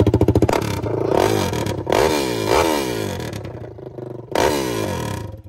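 Kawasaki KX dirt bike engine running and blipped several times, the revs rising and falling, then shut off suddenly near the end. It runs with its exhaust pipe sheared off and hanging by a spring.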